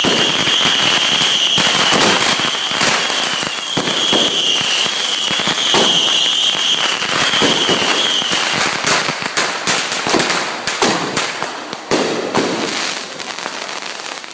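Fireworks going off in a dense, rapid string of crackling pops and bangs that thins out somewhat in the last few seconds. A steady high whistle, wavering in places, sounds over the crackle and stops about eight and a half seconds in.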